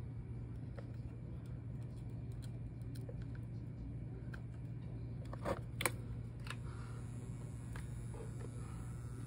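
Steady low electrical hum with a few faint small clicks, the strongest two close together a little past the middle, while solder is being melted on a circuit board.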